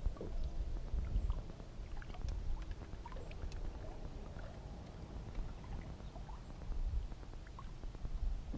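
Wind rumbling and buffeting on the microphone aboard a boat on open water, with faint scattered ticks and small splashes of water lapping against the hull.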